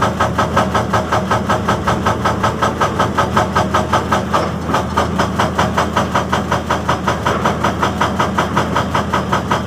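Excavator's hydraulic breaker hammering rock in an even rhythm of about five blows a second, over the steady running of the excavator's diesel engine.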